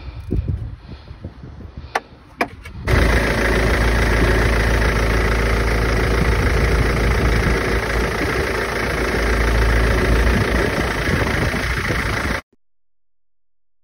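A few light clicks and knocks of tools at the crankshaft pulley, then about three seconds in the BMW M47 2.0-litre four-cylinder turbo-diesel is heard running steadily at idle with its new crankshaft pulley fitted. The engine sound cuts off abruptly near the end.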